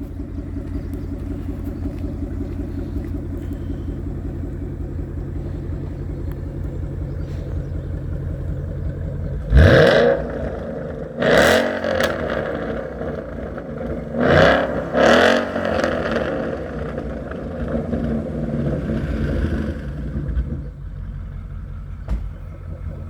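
Ford Mustang GT's 5.0-litre V8 idling steadily, then revved in four short throttle blips, one pair about ten seconds in and another about fourteen seconds in, before dropping back to idle.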